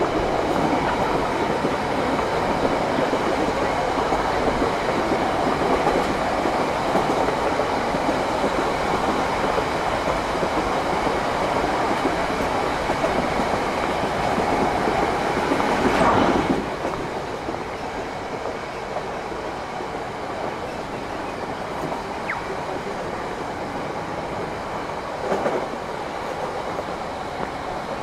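A train running on its tracks: steady running noise, with a sharp clunk about sixteen seconds in, after which the noise is a little quieter, and a brief knock near the end.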